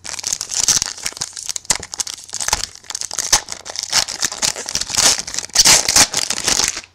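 Foil trading-card pack wrapper being crinkled and torn open by hand: a dense, loud, crackling rustle that starts suddenly and stops suddenly near the end.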